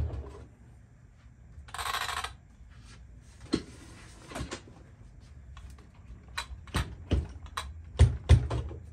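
Hands handling an RC truck's plastic body and bare chassis on a workbench: scattered plastic clicks and knocks, a brief scraping noise about two seconds in, then a quick run of clicks and two heavier thumps near the end as the chassis is set down and moved.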